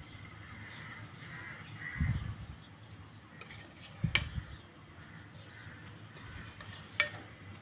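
A crow cawing faintly in the background, with two soft thumps about two and four seconds in and a sharp click near the end.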